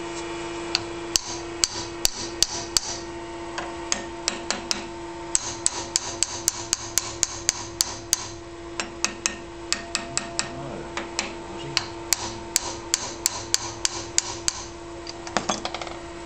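Hand hammer striking the steel wedge grip of a hydraulic tensile testing machine: sharp ringing taps, two or three a second, in irregular runs. It is knocking loose the jaws, which have stuck on the broken tube specimen.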